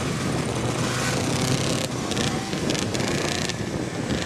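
Vintage snowmobile engines running with a steady hum.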